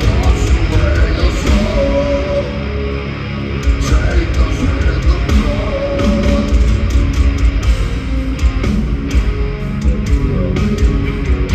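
Live heavy metal band playing in an arena: distorted electric guitar over bass and pounding drums. The music is loud and reverberant, recorded from the crowd.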